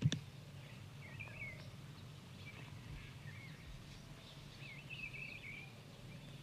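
Faint outdoor ambience with scattered small birds chirping over a low steady hum, and a short sharp knock right at the start.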